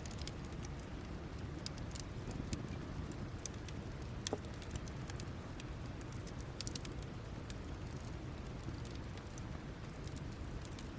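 Wood campfire burning down to embers, crackling with scattered sharp pops over a low steady rumble; one louder pop about four seconds in.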